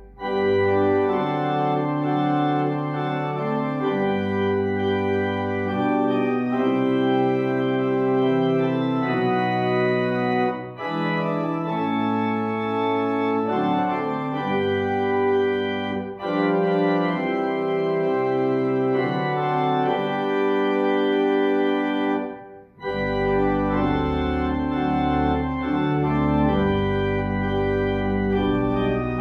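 Organ playing slow, held chords, a hymn-like tune that pauses briefly between phrases about three times.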